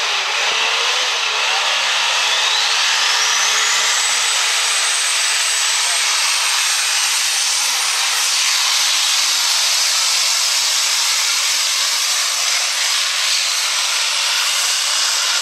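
Super stock diesel 4x4 pulling truck's engine at full throttle under the load of the pulling sled. A high whistle, typical of the turbochargers spooling, rises over the first few seconds and then holds steady over the engine noise.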